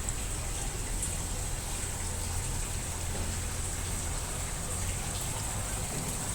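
Muji M-W42D 4.2 kg fully automatic washing machine running with a constant rush of water over a steady low hum.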